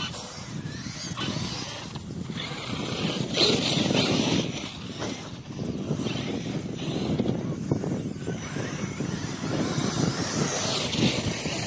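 Electric 1/16-scale RC trucks driving across loose sand: motor and tyre noise that swells and drops as they speed up and turn.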